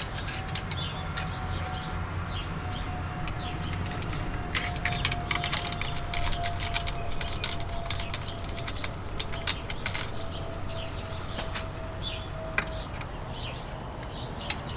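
Metal bicycle chain clicking and rattling in quick irregular ticks as the new chain is handled and run onto the rear cog and chainring, densest in the middle.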